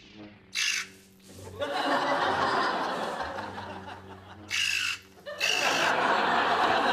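Sitcom studio audience laughing, swelling up twice, with short harsh high bursts in between.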